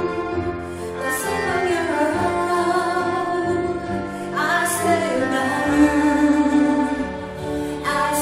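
Live music: a woman singing a slow, sustained melody with vibrato over instrumental accompaniment.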